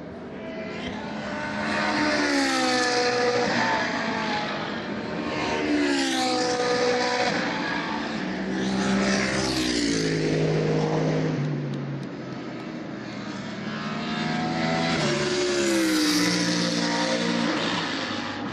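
GT3 race cars passing at speed one after another. Their engine notes drop in pitch as each car goes by, with four loud passes: about two seconds in, about six seconds in, around ten seconds in, and near the end.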